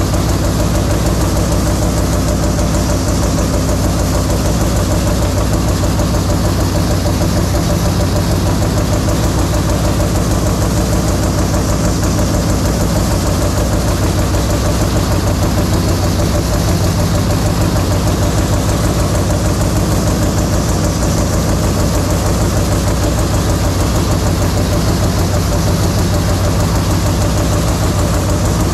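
CNC turret punch press punching slots into stainless steel sheet: a rapid, steady run of metal-on-metal punch strokes, loud and even.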